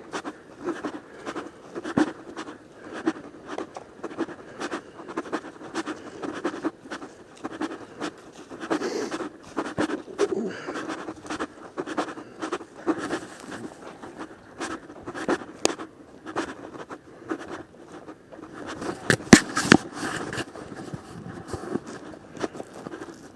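Footsteps walking on a trail, a steady run of irregular crunches and scrapes, with a louder cluster of knocks near the end.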